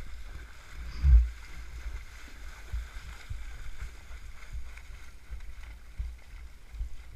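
Horses' hooves splashing through muddy floodwater on a track, with irregular low thuds of the hoofbeats and one heavy thump about a second in.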